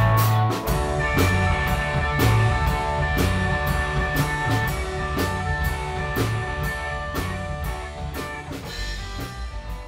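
Live electric blues band playing without vocals: electric guitar over regular drum hits, getting steadily quieter toward the end.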